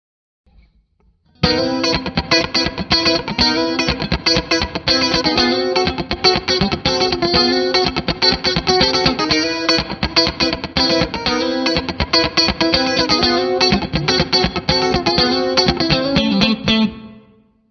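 Electric guitar, a 1997 Fender Stratocaster played clean through a NUX MG-30's Roland JC-120 amp simulation with a modulation effect, strumming a funky rhythm of quick, choppy strokes. It comes in about a second and a half in and fades out near the end.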